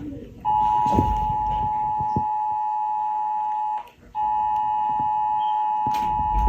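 Emergency Alert System-style attention signal: two steady high tones sounding together in long blasts of about three and a half seconds, with a brief break just before the middle.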